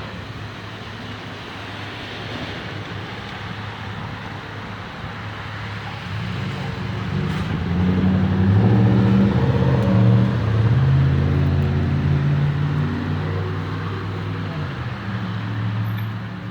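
A motor vehicle's engine coming close and passing, growing louder from about six seconds in, loudest around the middle, then easing off, over steady road noise.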